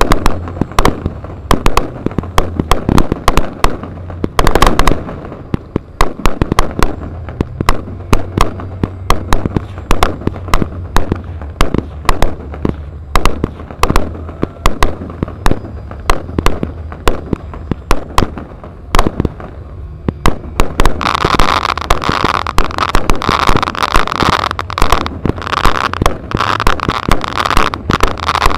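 Pyrotechnic firecracker charges going off in rapid irregular strings of sharp bangs, several a second, as the ground effects of a staged air battle, over a low steady hum. About three quarters of the way through, a loud hissing noise joins the bangs.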